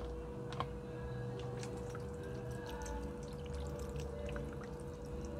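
Vinegar being poured from a plastic jug onto raw sprat fish in a metal bowl, splashing and dripping, with scattered light clicks and one sharp click about half a second in.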